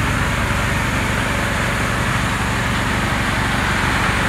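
Trailer-mounted GCS air-powered grain cleaner running, driven by a small single-phase generator that also runs its fan and two pencil augers: a steady engine hum with an even hiss over it.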